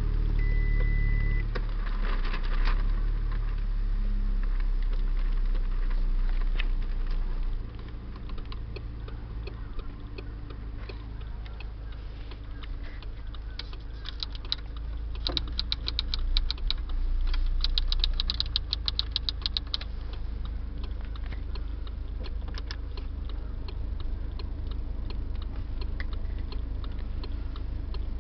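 A 2008 Audi A3's engine idling, with a short beep near the start. The hum eases off about eight seconds in, and a fast run of light clicks comes midway through.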